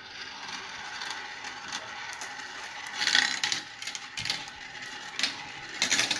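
Marbles rolling and clattering down a marble run, a steady rolling rattle with louder bursts of clacks about three seconds in and again near the end.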